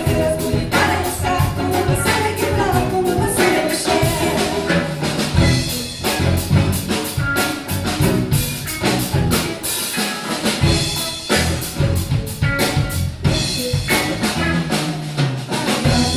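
Samba music: a voice singing over a steady, busy beat of drums and percussion.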